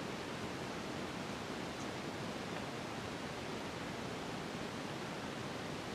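Steady, even hiss of room tone and recording noise, with nothing else sounding.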